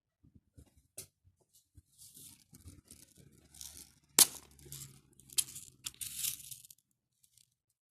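Crinkly rustling of packaging being handled in several short bursts, with a few sharp clicks among them, the loudest about four seconds in.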